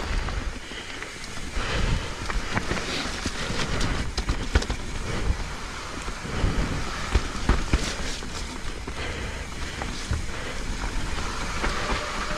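Mountain bike riding down a wet, muddy trail: steady wind and tyre noise with frequent knocks and rattles from the bike over rough ground.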